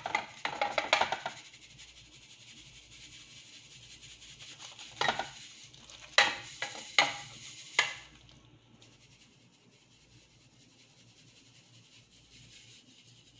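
Round steel flour sieve rattling and knocking against a steel bowl as flour is shaken and tapped through it: a quick rattle for about the first second, then five sharp taps between about five and eight seconds in, then only faint hiss.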